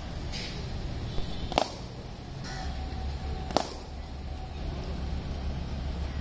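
Cricket bat striking the ball in batting practice: two sharp cracks about two seconds apart, over a steady low hum.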